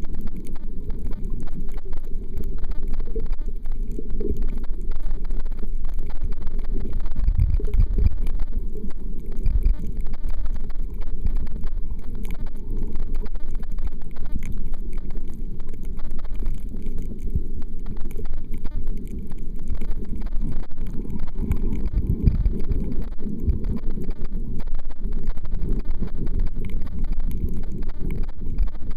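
Muffled underwater rumble and water movement picked up through a camera's waterproof housing, with irregular low thumps from the moving water and handling.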